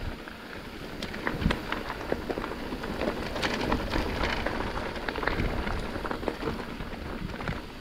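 Mountain bike rolling over a rough trail: tyres crunching over dirt and stones, with many scattered clicks and rattles.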